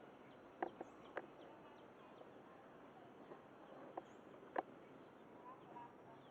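Quiet outdoor ambience broken by a handful of short, sharp clicks or taps: three close together about a second in, then two more later, the last the loudest.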